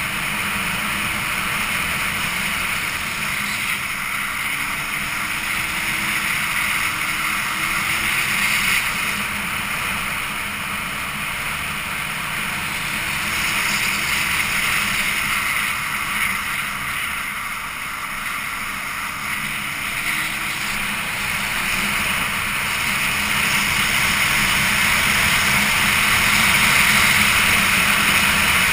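Wind rushing over the camera microphone on a moving motorcycle, with the engine note faint underneath, its pitch drifting up and down a little. The rush grows somewhat louder near the end.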